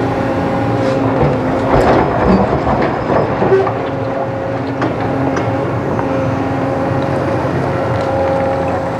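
Sumitomo 300-class hydraulic excavator's diesel engine running steadily under load as its bucket digs into broken stone and rubble, with rocks knocking and clattering against the steel bucket, most densely about two to three and a half seconds in.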